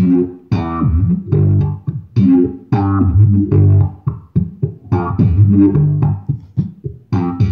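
Electric bass guitar playing a line of plucked notes through an effects pedal, in short phrases with brief gaps and a few notes sliding in pitch.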